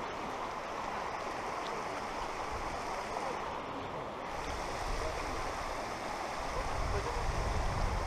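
Steady rush of flowing water, with a low rumble on the microphone building in the last second or two.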